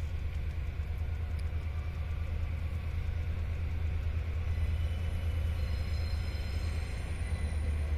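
Diesel-electric locomotive R155 of a freight train running with a steady low rumble.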